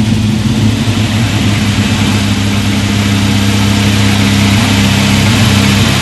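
1976 Jeep CJ7 engine running steadily, its pitch holding nearly level.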